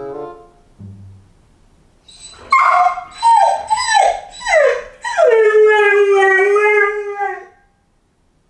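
A five-month-old golden retriever puppy left home alone, whining in a run of short calls that slide down in pitch from about two seconds in, then giving one long howl of about two and a half seconds: separation distress.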